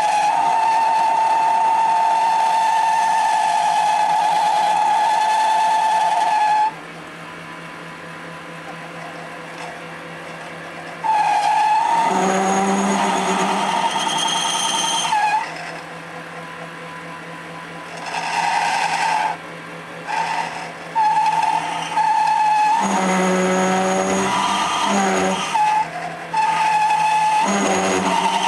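MX-210V mini metal lathe boring out the compound crank with a boring bar set at long stick-out: a high, steady squeal from the cut comes and goes. It sounds for about the first seven seconds, then in shorter stretches, and between them drops to the quieter running of the lathe.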